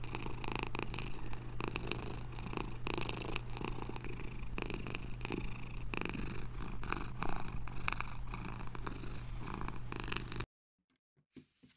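A domestic cat purring steadily in a continuous, pulsing rhythm, cutting off suddenly near the end.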